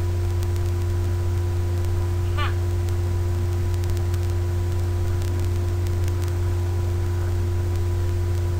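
Steady low electrical hum with fainter steady tones above it, unchanging throughout, and one brief high chirp about two and a half seconds in.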